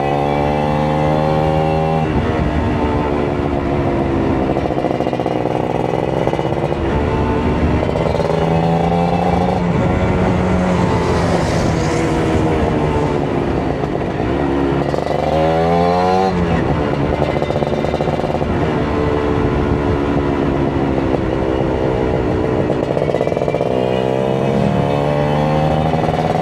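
Kawasaki Ninja 150RR two-stroke single-cylinder engine running under way, its revs climbing and dropping repeatedly as it is ridden through the gears. The sharpest climb comes about fifteen seconds in and cuts off abruptly at a gear change.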